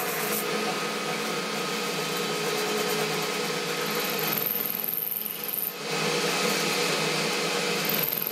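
Boxford metal-turning lathe running under cut, its tool turning the diameter of a small part held in the chuck: a steady motor and gear hum with the hiss of the cut. A high-pitched whine comes in about halfway through, stops briefly, and returns near the end.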